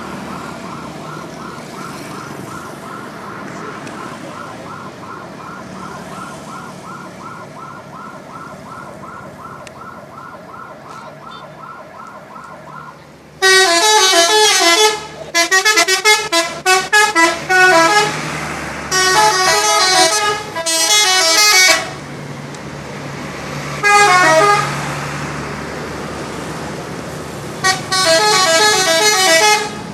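Bus 'telolet' multi-tone air horns sounding in loud bursts of quick, tune-like blasts, starting about halfway through and repeating about five times over a bus engine's low running. Before them, a quieter, evenly repeating beep, about three a second.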